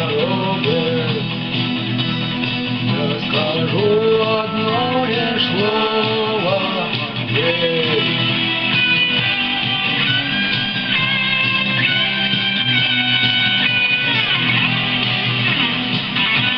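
Instrumental break in a guitar-driven rock song: a guitar plays a melodic lead with bent notes over steady band backing, moving higher about halfway through.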